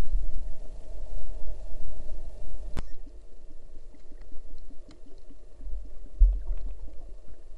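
Underwater sound heard through a waterproof camera housing: low rumbling and thumps of moving water against the housing. A single sharp click comes about three seconds in, followed by faint scattered crackling ticks.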